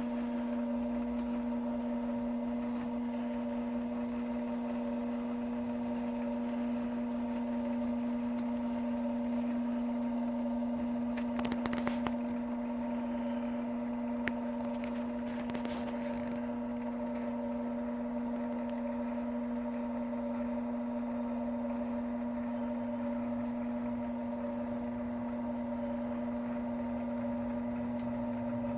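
Rose engine lathe running with a steady electric motor hum while the spindle turns, with two brief scratchy noises near the middle.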